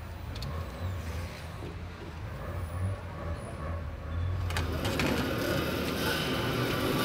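Low steady engine rumble. About four and a half seconds in, a few sharp clicks and a brighter clatter of handling come in.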